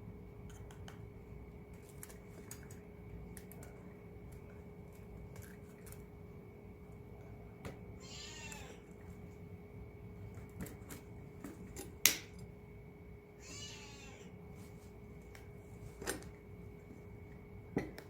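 Two wavering high-pitched squeals, each about a second long and some five seconds apart. Between and after them come a few sharp clicks, the loudest about twelve seconds in, over a faint steady hum.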